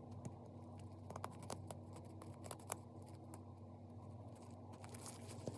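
Faint, scattered light clicks and scratches of small hand tools working on a metal brooch, over a low steady hum.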